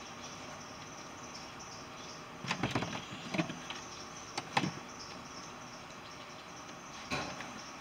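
Parts of a car's HVAC air distribution case being handled and fitted together: a few short clusters of clicks and knocks, the busiest between two and a half and five seconds in, and one more near the end.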